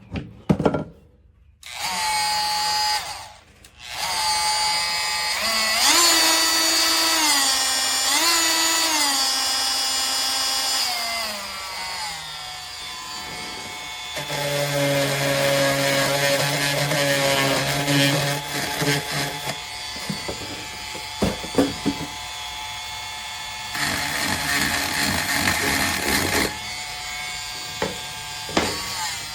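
Dremel Multi-Max MM50-02 corded oscillating multi-tool running at its lowest speed setting with a wood blade, cutting scrap maple. The motor's whine starts about two seconds in, breaks off briefly, then runs on, its pitch dropping and recovering several times as the blade takes load.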